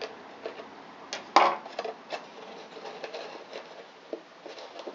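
Handling of paper-craft ball and scissors on a wooden table: a few light knocks and clicks, the loudest about one and a half seconds in, as the scissors come out from behind the glued flap.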